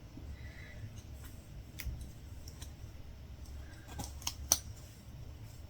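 Faint, scattered clicks and snips from latch hook work on a rug canvas: the hook tool and yarn being handled. A few sharper clicks come in quick succession about four seconds in.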